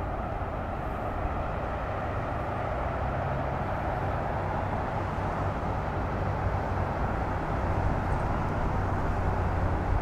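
Jeep Grand Wagoneer's engine running as it drives slowly across a parking lot, a low hum that grows slowly louder as it comes closer, over a steady outdoor rush of noise.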